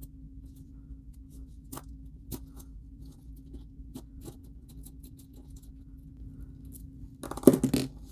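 Small metal clicks and ticks from a screwdriver working the screws of a stainless-steel Leatherman Tread LT bracelet link, irregular, a few a second, over a steady low hum. A louder burst of sound near the end.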